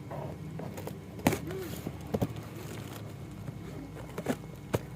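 A few sharp clicks and knocks, about a second in, at two seconds and near the end, from packaging and bottles being handled, over a faint low background murmur.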